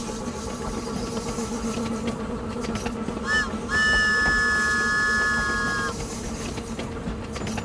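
Cartoon toy train's whistle: a short toot about three seconds in, then one long steady whistle lasting about two seconds, over the steady running rumble of the train.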